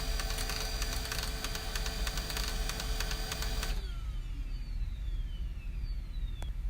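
Computer printer running, a rapid clatter of clicks over a steady whir, which stops abruptly about four seconds in. A falling whine and a low hum follow, with a single click near the end.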